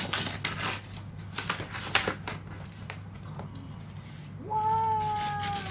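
Packaging being torn open by hand: irregular rustling and ripping with a sharp snap about two seconds in. Near the end a long, wavering pitched tone starts and carries on.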